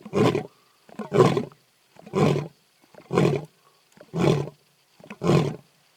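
Male African lion giving the closing series of deep grunts of a territorial roar, six in a row about one a second, each slightly weaker than the last.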